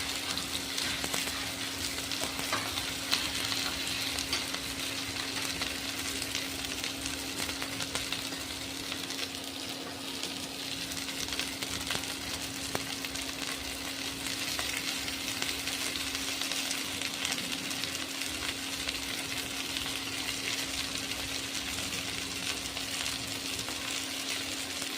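Chicken frying in hot oil: a steady sizzle with scattered small pops, over a steady low hum.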